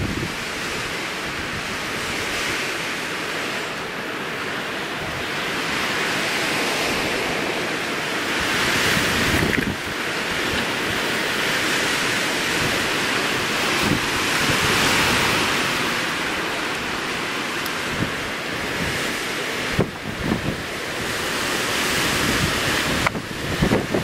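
Blizzard wind blowing through snow-laden pine trees in gusts of 30 to 50 mph, a rushing that swells and eases every few seconds. Wind buffets the microphone with low rumbles throughout.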